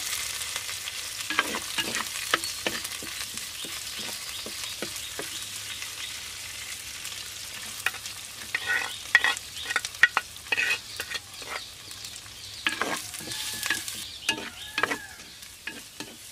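Food frying in hot oil in a pan: a steady sizzle, with a utensil stirring and knocking against the pan in short bursts of clicks near the start and through the second half.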